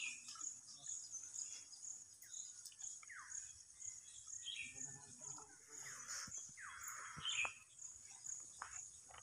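Insects chirping in a steady high pulsing rhythm, a few pulses a second, with short falling bird calls now and then.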